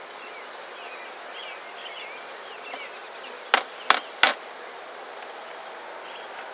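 Honeybees buzzing steadily around an open hive. A little past the middle come three sharp wooden knocks as hive parts (frames and a wooden board) are handled.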